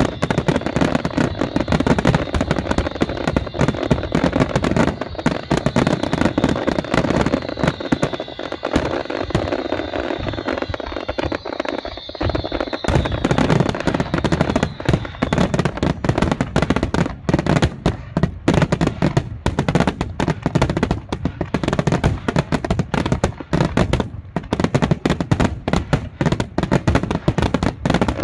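A fireworks barrage: rapid, dense bangs and crackling shells going off without pause, with a faint high whistle falling slowly in pitch through the first half.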